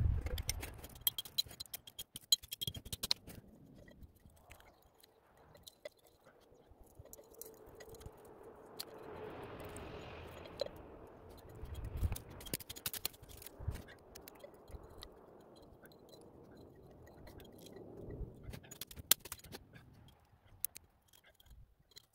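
Hatchet blade scraping and tapping on spruce bark while harvesting sap into a glass jar, in scattered sharp clicks and scrapes. A soft rushing noise swells and fades near the middle.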